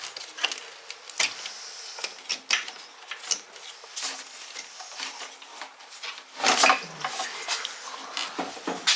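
Irregular clicks, knocks and clatter of tools and parts being handled during motorcycle repair work, with a louder burst of clatter about six and a half seconds in.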